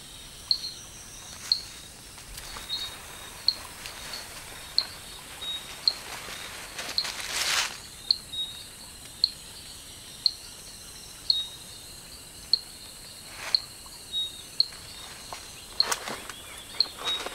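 Forest ambience: a short, high chirp repeating about once a second over a steady background hiss, with bursts of rustling in dry leaves and vegetation about halfway through and near the end.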